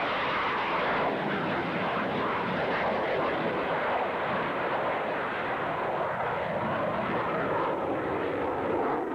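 Engine of an aerobatic airplane flying a display manoeuvre, a steady noise that grows slightly duller in the second half.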